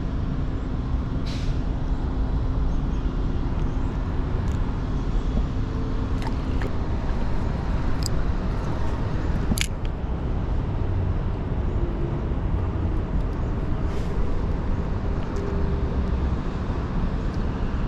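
Steady rushing of a mountain stream, with a few brief sharp clicks.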